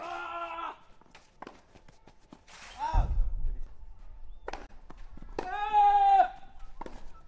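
Tennis player grunting loudly on his shots in a clay-court rally: two long, drawn-out grunts of under a second each, one at the start and one about five and a half seconds in, with the sharp pops of ball strikes in between. A dull thump comes about three seconds in.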